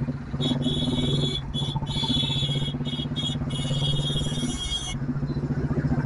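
Royal Enfield Bullet's single-cylinder engine running at a steady cruise, with its even thumping beat. A high-pitched squeal starts and stops several times from about half a second in until about five seconds in.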